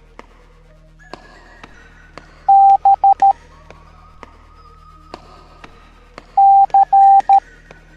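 Morse code sent as steady beeps of one pitch: dash-dot-dot-dot, the letter B, about two and a half seconds in, then dash-dot-dash-dot, the letter C, near the end. Quieter background music runs under the beeps.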